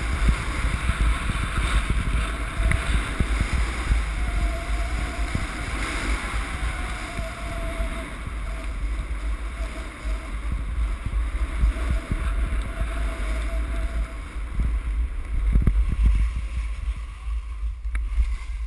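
Wind buffeting the microphone of a skier's point-of-view camera during a downhill run, a heavy rumble mixed with the steady hiss of skis sliding over snow.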